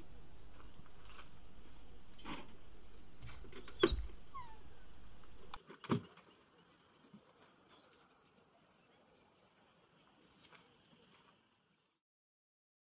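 Steady high-pitched chorus of insects, likely crickets, with a few sharp knocks, the loudest about four seconds in and another about six seconds in. Everything fades out near the end.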